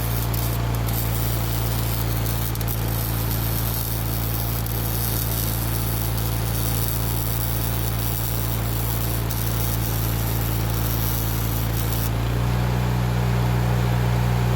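Electric arc welding: the arc hisses and crackles steadily over the welding machine's low hum. About twelve seconds in the arc stops and only the hum goes on.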